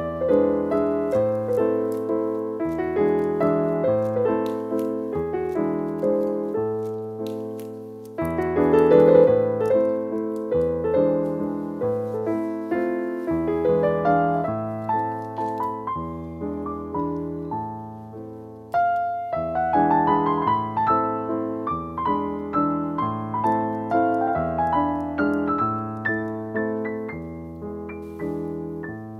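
Background solo piano music.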